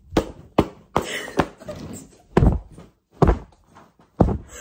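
A paperback book being punched: about seven dull thumps at uneven intervals, the heaviest in the second half.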